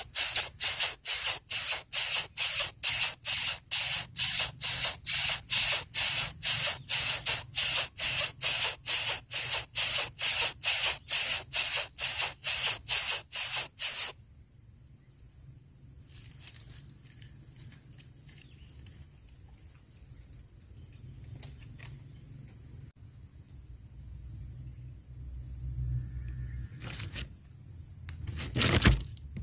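Coucal chick hissing in rapid rhythmic bursts, about three a second, which stop abruptly about halfway through. After that only a steady high-pitched tone remains, with a brief loud noise near the end.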